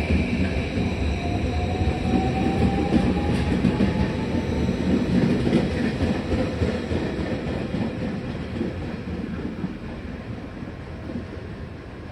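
JR Kyushu 821 series electric train pulling away, its motor whine rising in pitch over the first few seconds over a rumble of wheels and cars, then fading steadily as it moves off.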